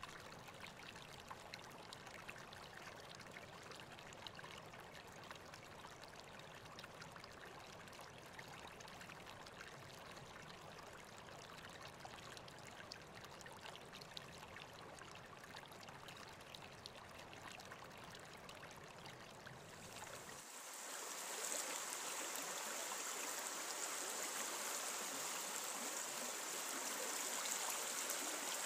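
River water flowing in a steady rush. About two-thirds of the way through it turns louder and hissier, with the low rumble gone.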